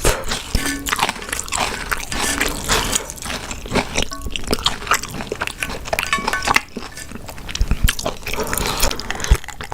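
Close-miked chewing and biting of food, with irregular wet squishes and crunchy clicks.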